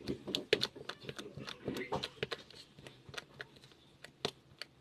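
Irregular short clicks and taps, a couple of dozen scattered at uneven intervals, thinning out in the last second.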